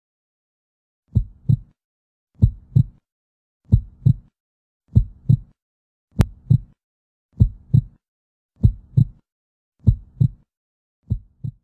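Heartbeat sound effect: slow double thumps (lub-dub), about one every second and a quarter, nine beats in all, the last one quieter.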